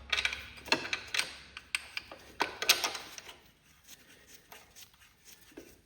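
Irregular metallic clicks and taps as a rear mounting bolt is worked into a garden tractor's transmission mount, thickest in the first few seconds and thinning out toward the end.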